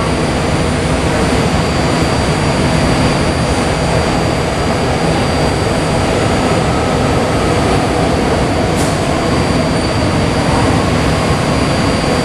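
Steady, loud whir of a BART Fleet of the Future train standing at a station with its doors open, a thin high whine running through it. A brief high click sounds about nine seconds in.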